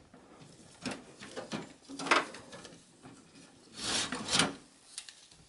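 Hard drive being worked out of its bay in a desktop PC's metal case, scraping and rubbing. A few short scrapes come first, then a longer, louder scrape about four seconds in.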